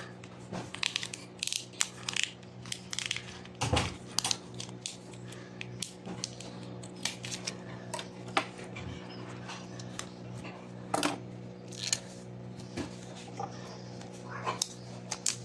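Irregular crackles and clicks of electrical tape being pulled off the roll and wrapped around a wire harness, over a steady low hum.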